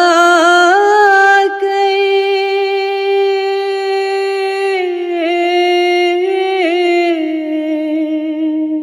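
A woman singing an Urdu naat solo, holding one long note on the word "khuda", steady in pitch apart from two small ornamental turns later in the note.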